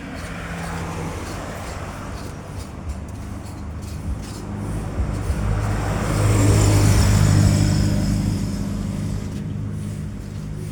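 A motor vehicle passing by: a low engine hum and road hiss that grow louder to a peak about six to eight seconds in, then fade.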